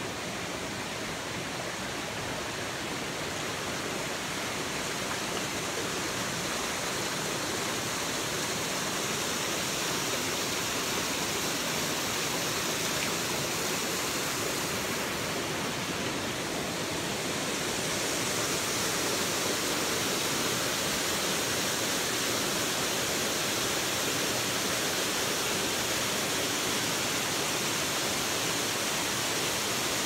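Rushing water of a waterfall and rocky stream in a gorge: a steady, even rush that grows a little louder and brighter past the midpoint.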